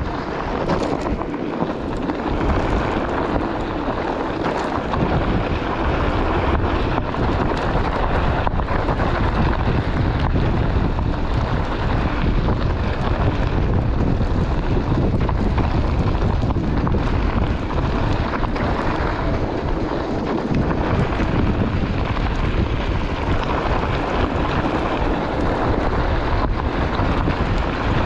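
Onewheel rolling over a desert gravel trail: a steady crunch of the tyre on gravel under a heavy rumble of wind buffeting the action-camera microphone.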